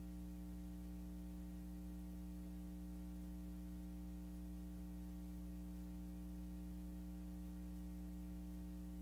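Steady electrical mains hum with a faint hiss and nothing else: the empty soundtrack of a silent film transfer.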